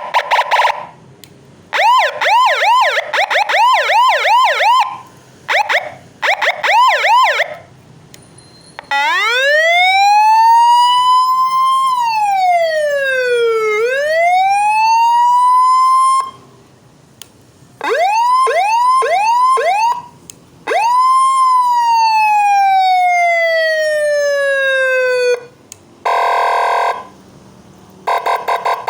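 A 12-tone electronic siren (Rescue 12, 40 W) sounds through a NARAE NSH 70 horn speaker, stepping through its tones one after another with short pauses between them. It plays short buzzing horn blasts, a fast yelp of quick rising chirps, and a slow wail that climbs, falls and climbs again. Then come a few quick chirps, a long tone that rises once and slides slowly down, and a buzzing horn again near the end.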